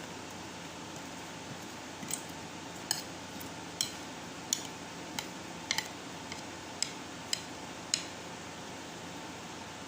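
About a dozen light, sharp clinks and clicks of tableware being handled, like a plate, utensil or glass being touched and set down, over a steady fan-like hum.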